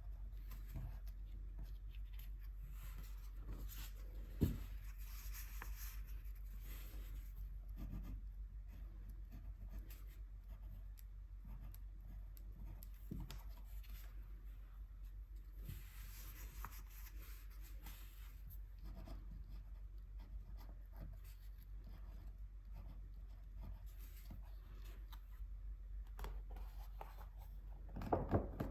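Soft strokes on paper during gouache swatching, in slow passes, with a single light knock about four seconds in and a few knocks near the end.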